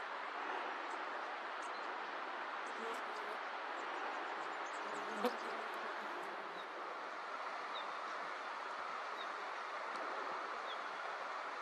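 Flies buzzing steadily in a swarm, with one sharp click about five seconds in.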